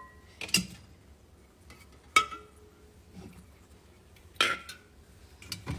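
Kitchen items being handled and set down: four separate sharp clinks and knocks, the loudest about two seconds in, two of them leaving a brief ring.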